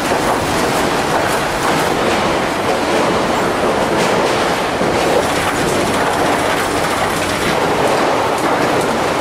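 Sawmill lumber-handling line running: chain conveyors and moving timber make a steady, dense mechanical rattle and clatter, with light knocks of wood on steel.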